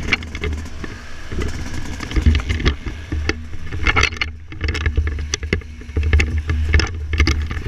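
Heavy, gusting wind buffeting on a pole-mounted GoPro's microphone as a Yamaha YZ250 two-stroke motocross bike is ridden on a dirt track, with its engine running under the wind noise and frequent short crackles and knocks.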